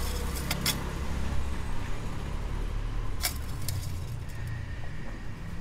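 Engine oil dipstick being pushed back into its metal tube, giving a few light clicks, over a low steady rumble.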